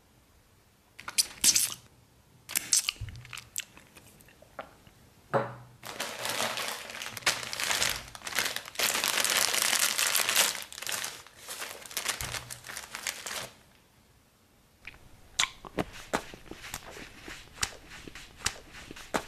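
A plastic bag of cotton pads crinkling at length as hands handle it and pull pads out, with sharp crunchy clicks of ASMR-style chewing before and after.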